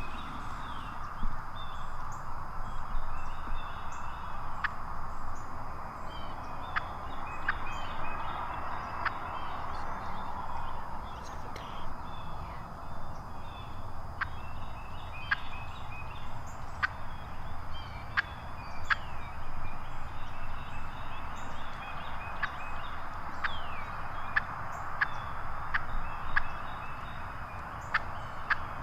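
Wild turkey calling: a long irregular series of short, sharp notes.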